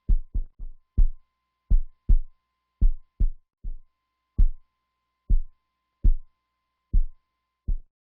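Heartbeat sound effect: deep, dull thumps, paired lub-dub beats at first, then mostly single beats a little under a second apart. A faint steady high tone sounds behind them.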